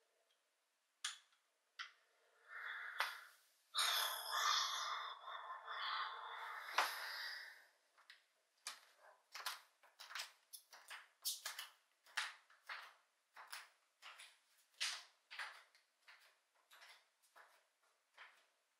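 A few soft knocks and several seconds of rustling as someone gets up off a bed. Then bare feet pad across a hardwood floor at about two steps a second, the footsteps growing fainter as the walker moves away.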